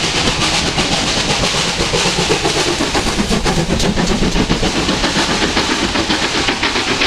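Steam-hauled passenger train passing close by: coach wheels clattering over the rail joints, then the tank engine at the rear going past with a steam hiss.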